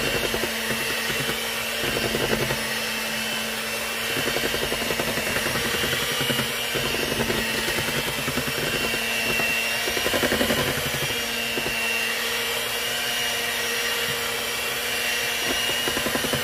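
Electric hand mixer running steadily, its beaters churning thick cake batter in a metal bowl, with a constant motor hum.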